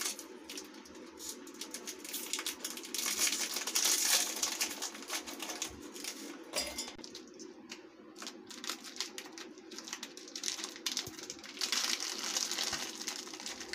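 Crinkling of foil-lined plastic biscuit wrappers being torn open, with irregular clicks and taps as biscuits are broken by hand and dropped into a stainless steel mixer-grinder jar.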